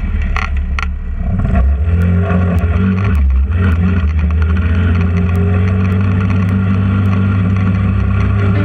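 Trailmaster 150 XRX go-kart's GY6 150cc single-cylinder engine running under throttle as the kart drives over dirt. There are two sharp knocks within the first second and a brief drop around one second, then a steady engine note from about four seconds.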